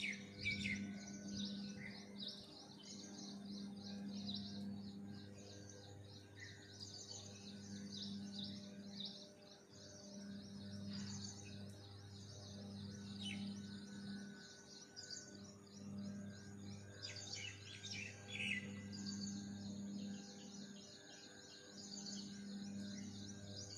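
Many small birds chirping and twittering at once, a dense, continuous chorus of short high calls. A low hum swells and fades underneath.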